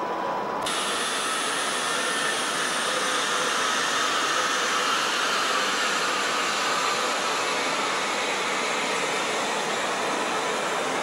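Railway noise in a station train shed: a steady, loud hiss that sets in abruptly about half a second in and holds level.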